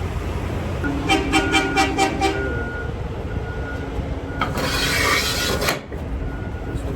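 Heavy vehicle running with a steady low rumble, a quick run of about eight pitched toots about a second in, and a thin high beep repeating on and off like a backup alarm. A burst of hissing follows about four seconds in.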